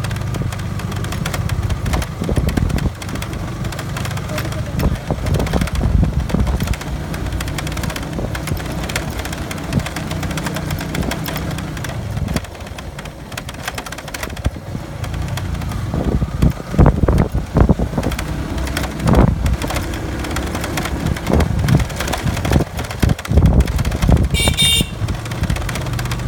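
Motorcycle engine running as it is ridden slowly over a rough, rocky dirt track, with irregular knocks and jolts from the bumps that grow busier in the second half.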